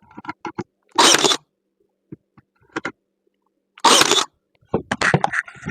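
A brad nailer firing twice, about three seconds apart, each shot a sharp burst of noise lasting about half a second, driving 1-inch brads into cedar picket boards. Small clicks and knocks of the wood being handled come between and after the shots.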